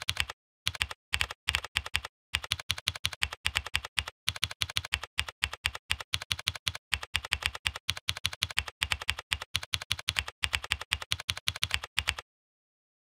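Typing on a computer keyboard: rapid keystrokes with a few short pauses, stopping about a second before the end.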